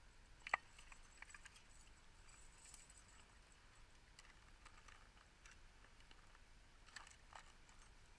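Faint scattered clicks and clinks from fishing gear being handled with a caught fish on the line. One sharp click about half a second in, and a couple more near the end.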